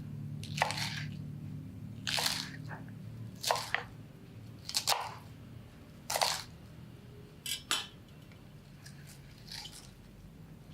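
A kitchen knife cutting through crisp vegetables on a cutting board: about seven separate crunchy cuts, roughly one every second and a half, two in quick succession near the middle.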